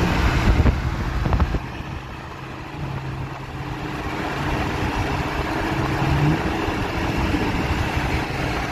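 Dodge Charger's engine accelerating hard, heard from inside the cabin: a loud surge in the first second and a half, then a steady pull that grows louder toward the end.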